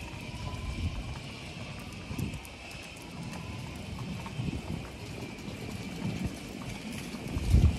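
Footsteps on a paved street, with wind gusting on the microphone; the strongest gust comes near the end.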